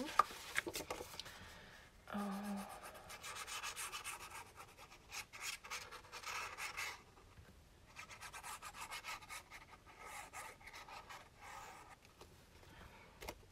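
Black cardstock rubbing and sliding under the hands while the tip of a squeeze bottle of liquid glue scrapes along the paper edges, laying down a glue line. The rubbing comes in two spells with a short lull about seven seconds in, and a brief low hum of voice about two seconds in.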